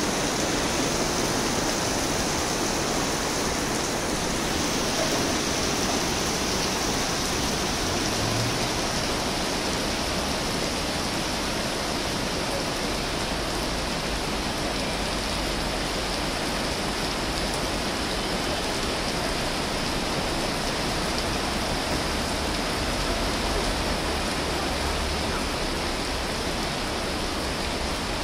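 Heavy rain pouring steadily onto a paved street, an even hiss with no let-up.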